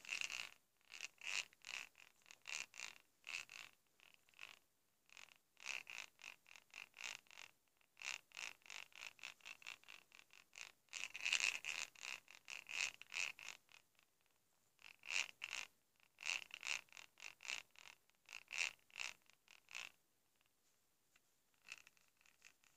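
Gravity-operated purr box from a kitten plush, mounted inside a fursuit head, purring in rattly bursts as the head is shaken. The bursts last from about half a second to two seconds, with short pauses between them.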